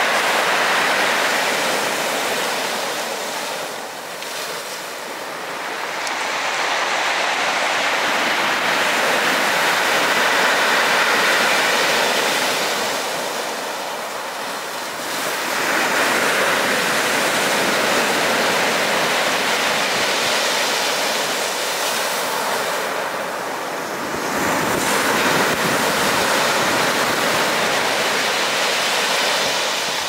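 Storm surf on the Black Sea breaking on a pebble beach and washing around rocks: a loud, constant rush that swells and eases with each set of waves, with lulls about every ten seconds.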